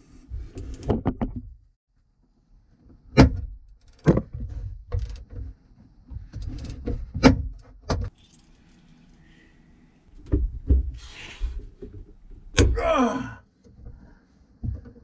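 Wrenches and sockets clanking and knocking against a badly corroded fitting on a plastic boat fuel tank as they are set on it and levered to break it free, with several sharp metallic knocks at irregular gaps.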